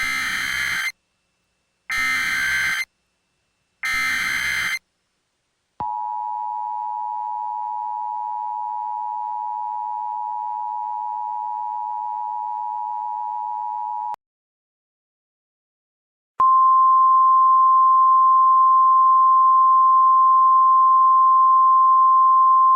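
Emergency Alert System tones: three one-second bursts of SAME header data screech, then about eight seconds of the EAS two-tone attention signal. After a short gap comes the steady single-pitch NOAA Weather Radio warning alarm tone, signalling a tornado warning.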